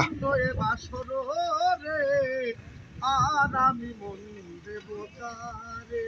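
A man's voice singing in several drawn-out, wavering phrases with short pauses between them.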